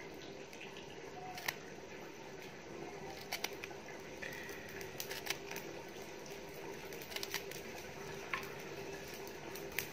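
Kitchen knife cutting through a handful of fresh coriander held in the hand, the blade drawn against the thumb: scattered short, sharp snips about a second or two apart, with leaves dropping onto a steel plate.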